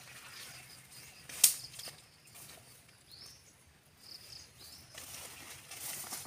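Footsteps brushing through grass and leafy undergrowth, with one sharp snap about a second and a half in.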